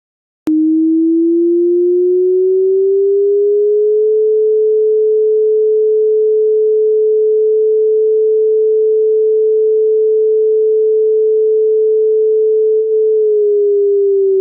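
Synthesized electronic siren tone: a single clean tone that starts suddenly about half a second in, slowly rises in pitch over a few seconds, holds steady, then begins to fall near the end, like a slow wail.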